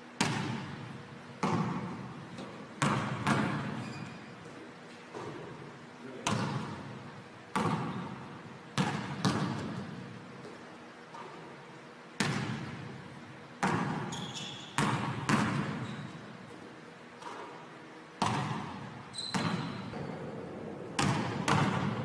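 A basketball striking the rim, backboard and hardwood gym floor during shooting practice. About twenty sharp thuds come at irregular intervals, each echoing in the large hall.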